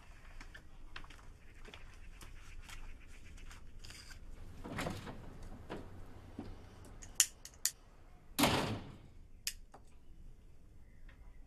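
Scattered light clicks and knocks with a few short rustling bursts, the loudest being two sharp clicks about seven seconds in and a brief rustle just after.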